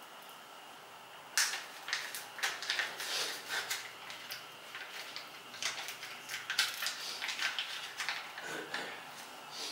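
Foil sachet crinkling and rustling as it is handled, in an irregular run of sharp crackles that starts about a second and a half in and goes on almost to the end.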